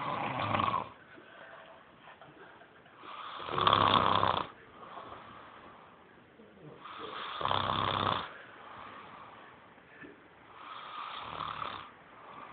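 A sleeping man snoring: four loud snores, one about every four seconds, with quiet breathing between them.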